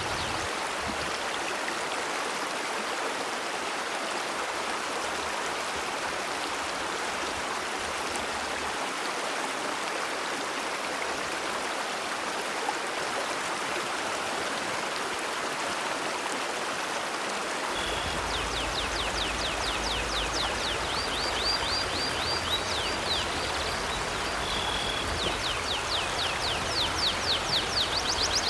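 Steady rushing of a river's flowing water. About two-thirds of the way in, a bird joins with a fast run of high, rapidly repeated chirps that carries on to the end.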